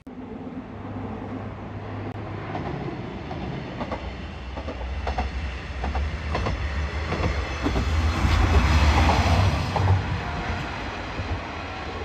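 JR Shikoku 1000 series diesel railcar passing on a bridge: a steady low engine hum with wheels clacking over the rail joints, growing louder to a peak about two-thirds of the way through and then easing off.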